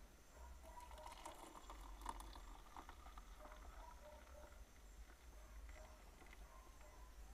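Just-boiled water poured from a small stainless steel pot into a mug, a faint trickle and splash starting about half a second in.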